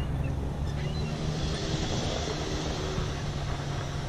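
Steady engine drone, with a hiss that swells partway through.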